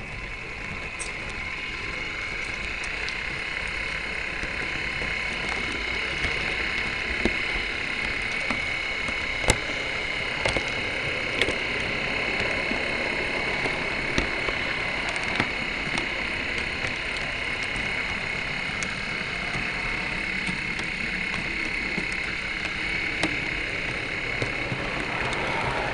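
Märklin digital model train running along the track, heard from a camera riding on it. The electric motor gives a steady whine over a rolling wheel noise, with scattered sharp clicks as the wheels pass over rail joints and points. It builds up over the first couple of seconds as the train gets under way.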